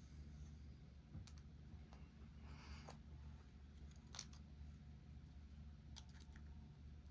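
Faint, scattered clicks of lock picks working in a Dorma lock cylinder, over a low steady hum.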